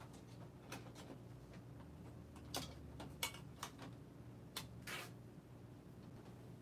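A series of sharp clicks and light knocks as hands handle and fit metal and plastic parts of an opened Epson L1800 printer's carriage assembly, the loudest about three seconds in.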